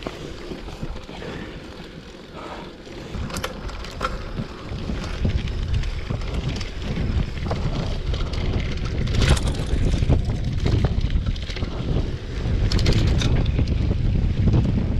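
Mountain bike descending a dirt trail at speed: wind noise on the microphone and tyre rumble that grow louder a few seconds in as the bike speeds up, with a few sharp rattling clicks from the bike over bumps.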